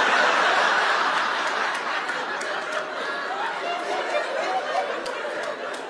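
Theatre audience laughing, loudest at first and slowly dying down.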